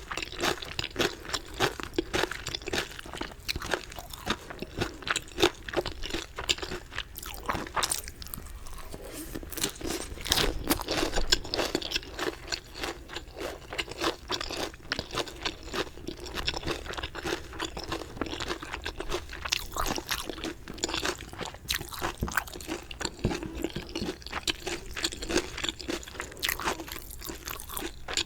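A person chewing and biting crunchy chicken close to the microphone: rapid, crisp crunches with a short lull about eight seconds in.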